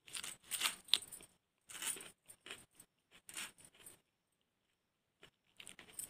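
Peeled ridge gourd being cut on a boti blade, a string of short crisp cuts at an uneven pace, with chunks falling into a steel bowl.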